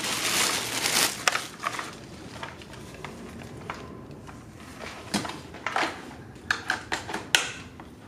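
Plastic packaging crinkling and rustling as the parts of a new stick vacuum are unwrapped, loudest in the first second. Scattered light clicks and knocks follow as the plastic vacuum parts are handled.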